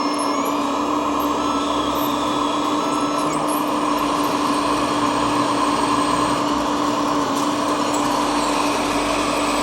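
Steady electric whine of a radio-controlled model's hydraulic pump and motors, holding one even pitch with a fainter higher hum above it.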